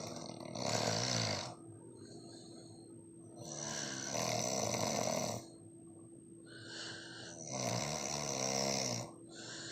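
Person snoring hard: three loud snores about three seconds apart, with quieter breaths between them.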